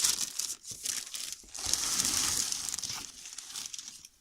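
Packaging crinkling and rustling in irregular bursts as the canister filter is pulled out of its box, with a denser stretch of rustling in the middle.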